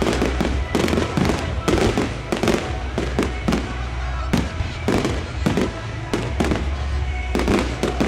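A fireworks display: aerial shells bursting in quick, irregular succession, about two or three bangs a second, with no let-up.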